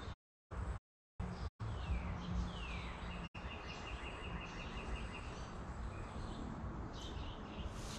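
Outdoor background noise with a steady low hum and birds chirping: a few quick falling chirps about two seconds in, then a fast trill of repeated high notes lasting about two seconds. The sound drops out completely several times in the first second and a half.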